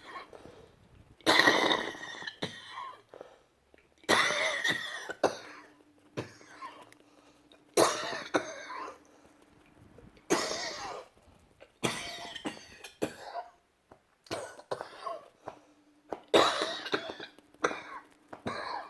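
A woman coughing hard in repeated fits, about seven loud bouts each trailing off into smaller coughs.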